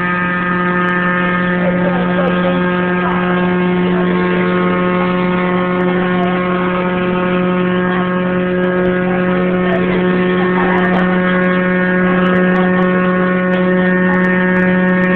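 A steady, loud hum holding one low pitch with a long row of overtones above it, unchanging in pitch or level.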